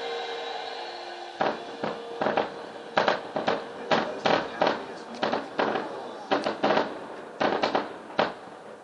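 Aerial fireworks shells bursting in a rapid, irregular string of bangs, two or three a second, starting about a second and a half in and thinning out near the end.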